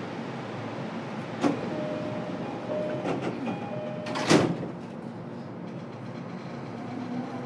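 Passenger doors of a JR East E233-7000 series Saikyo Line car closing at a station stop. A few clicks and short tones come before a loud clunk a little after four seconds in as the doors shut, over the steady hum of the stopped train.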